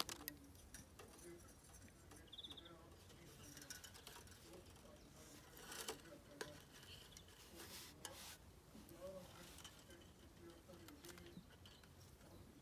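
Near silence with faint handling sounds as frame wire is drawn through the holes of a wooden beehive frame: a few soft scrapes and clicks, the clearest about six and eight seconds in.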